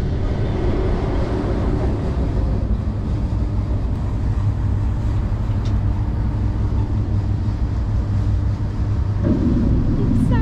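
Cruise boat underway at sea: a steady low drone from its engines, with an even rushing noise of water and air over it. It gets a little fuller about nine seconds in.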